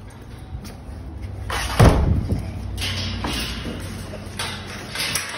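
A heavy thump about two seconds in, with lighter knocks around it.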